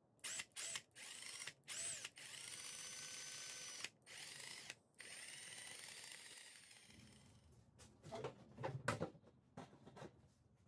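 Cordless drill motor whirring: several short trigger blips that rise in pitch, then a steady spin of a few seconds, broken by two brief pauses, before winding down. A few separate knocks and clatters follow near the end.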